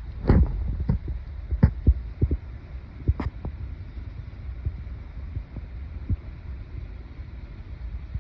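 Irregular muffled low thumps over a steady low rumble, with a few sharper knocks in the first three seconds or so, then thinning out.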